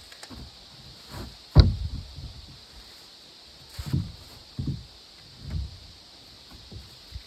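Several dull thuds and knocks at irregular intervals, the loudest a sharp knock about one and a half seconds in.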